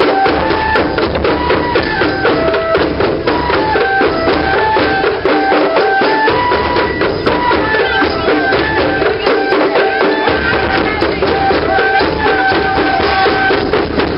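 Japanese festival music: a transverse bamboo flute (fue) playing a stepping melody over steady taiko drumming.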